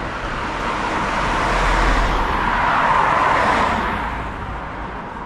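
A van drives past on the road. Its tyre and engine noise swells to a peak around the middle, then fades away over the last couple of seconds.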